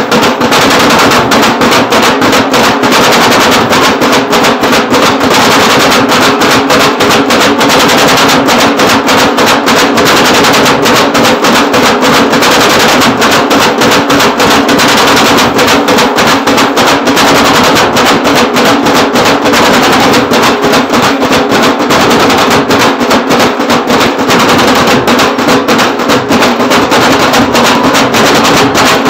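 Loud festival procession music: fast, rolling drum strokes, snare-like and rapid, over a steady held drone, running without a break.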